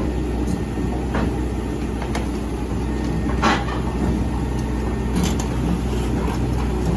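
Heavy diesel engine running steadily, with a few sharp knocks over it; the loudest knock comes about three and a half seconds in.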